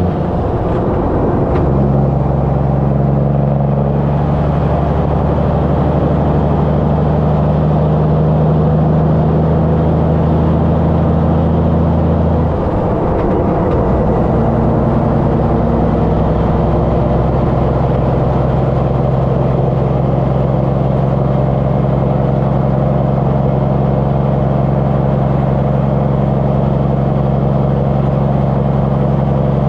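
Semi-truck diesel engine running steadily, heard at its twin chrome vertical exhaust stacks. The engine note shifts briefly about halfway through, then settles again.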